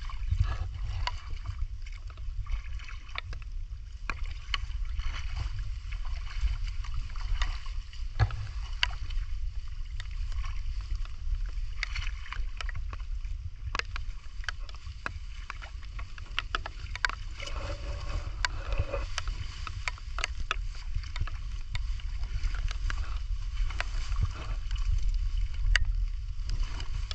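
Shallow muddy water splashing and sloshing around wading legs as a crab hook is worked into the mud, with scattered sharp ticks and a steady low rumble underneath.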